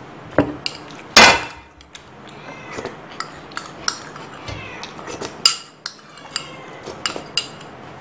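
Clinks and clatters of a stainless steel plate and a ceramic bowl being handled, with a metal knife scraping the inside of the bowl. One loud clatter with ringing comes about a second in, and another strong clink a little past the middle.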